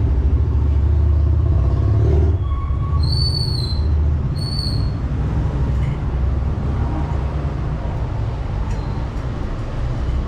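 Steady low rumble of motor traffic going by, with two short high-pitched chirps a little over a second apart near the middle.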